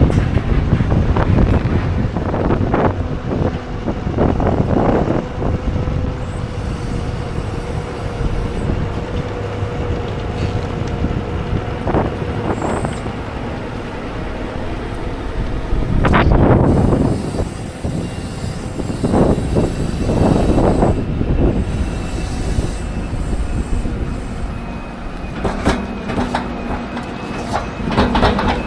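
Heavy farm machinery running at silage work: a steady low engine rumble with metal clanks and squeals, and a louder burst of noise a little past halfway.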